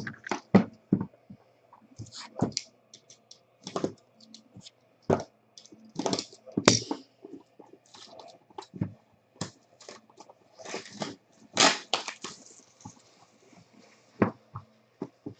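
Hands unwrapping and handling a sealed cardboard trading-card box: plastic wrapper crackling, with irregular clicks and knocks of the box and a longer crinkling stretch near the end.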